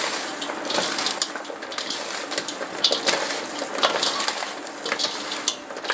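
Hands tossing salted raw potato slices and sliced onion in a stainless steel colander: a steady rustle with many small clicks and scrapes as the slices knock against each other and the metal.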